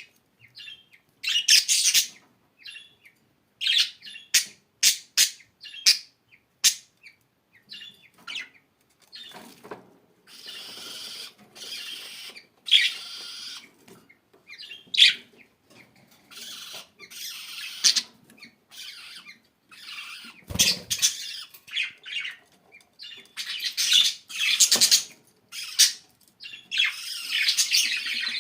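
Budgerigars chirping and squawking in bursts: short high calls, some in quick runs, and stretches of rapid warbling chatter. A single dull thump about twenty seconds in.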